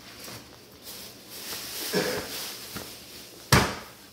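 A meat cleaver chops once, hard, through a piece of iguana meat into a plastic cutting board about three and a half seconds in, after soft rustling of gloved hands handling the meat.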